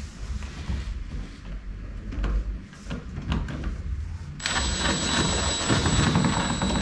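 Light clicks and knocks of tool and screw handling, then about two-thirds of the way in a cordless drill starts running steadily with a high whine, driving a screw.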